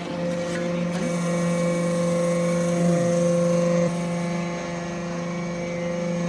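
Hydraulic metal swarf baler running: a steady, even machine hum that drops slightly in level about four seconds in.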